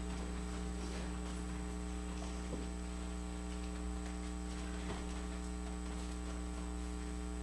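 Steady electrical mains hum with a faint high-pitched whine above it, and one small faint knock about two and a half seconds in.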